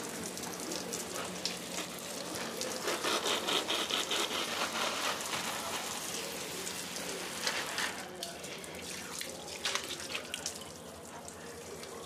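Water spray showering potted plants, many drops hitting leaves, pots and the tiled floor. The spray eases off near the end.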